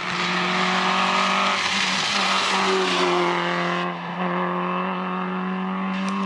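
Rally car engine running hard at high revs, with tyres hissing through standing water and spray on a wet stage. The hiss drops away a little under halfway through as the engine note carries on.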